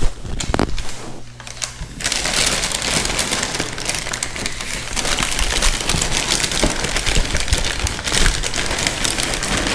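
A few knocks of a hand against a cardboard box, then, from about two seconds in, steady crinkling and rustling of the white wrapping around a helmet as it is gripped and shifted inside the box.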